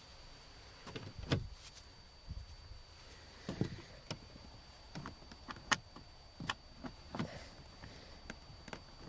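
Scattered clicks and knocks from work on a car's door trim panel, the sharpest a little over a second in and just before the middle.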